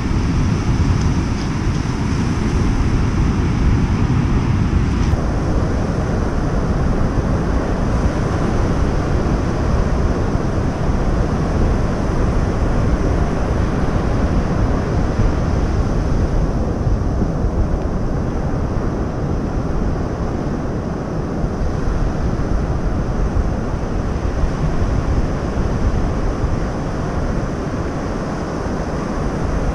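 Wind buffeting the microphone over the steady wash of rough surf breaking on a stony beach.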